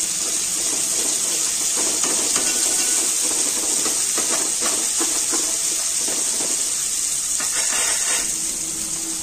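Sliced onions, green chillies and whole spices sizzling steadily in hot oil in an aluminium pot while a metal ladle stirs and scrapes against the pot, the onions frying down to soften.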